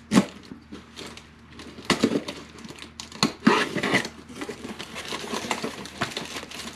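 Packing tape on a cardboard box being slit with a knife and the box flaps pulled open, with a sharp scrape near the start and louder tearing scrapes about two and three and a half seconds in, then rustling of the plastic-wrapped contents.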